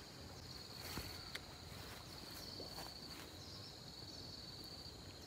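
Faint, steady high-pitched insect trilling with brief breaks, with a couple of soft knocks about a second in.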